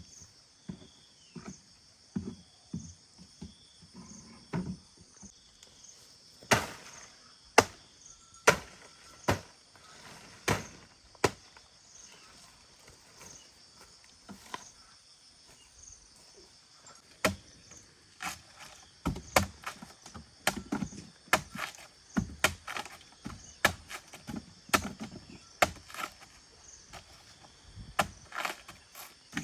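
Repeated sharp strikes on wood, like chopping, about one a second in two runs. A steady, high-pitched chorus of insects runs beneath them.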